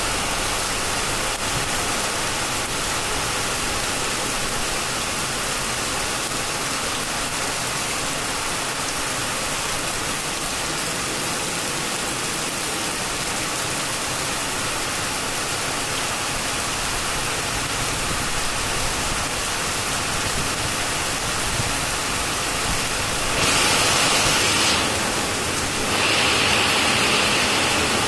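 Heavy rain pouring down on trees and leaves, a dense steady hiss that grows louder twice near the end.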